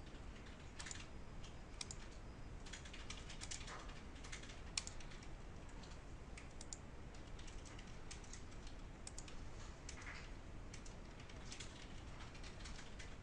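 Faint, irregular clicking of a computer keyboard and mouse: scattered key presses and button clicks at uneven intervals.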